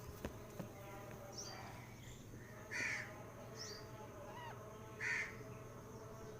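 A bird gives two harsh, caw-like calls a little over two seconds apart, with faint high chirps from small birds and a steady low hum underneath.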